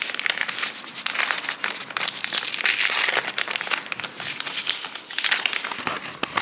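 Paper gift wrapping crinkling and rustling as its sticker seal is peeled off and the paper bag is opened, a continuous run of fine crackles.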